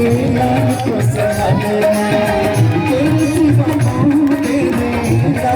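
Live devotional stage music: a wavering melody line over a steady drum beat.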